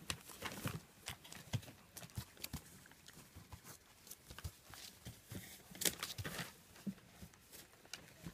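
German Shepherd puppies scrabbling over and chewing newspaper: irregular paper rustling and crinkling with small clicks and knocks.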